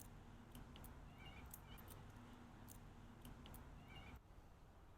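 Near silence with a few faint, short bird chirps, from the willy wagtail that visits the workshop, over a low room hum that drops out near the end.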